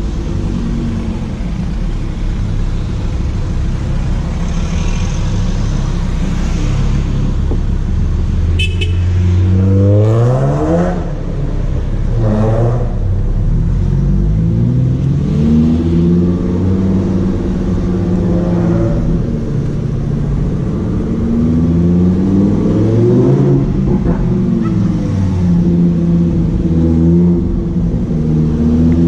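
Lamborghini Huracán Performante's naturally aspirated V10 idling with a low, steady rumble, then revved in several rising and falling sweeps from about ten seconds in. A single sharp crack sounds just before the first rev.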